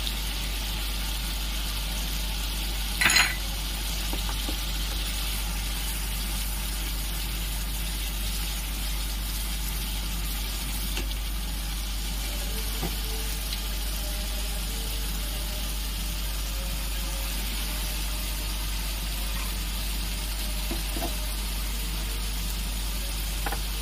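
Onion and spice masala sizzling steadily in oil in a nonstick pan as it is stirred with a spatula, over a steady low hum. One sharp clack of the spatula against the pan about three seconds in.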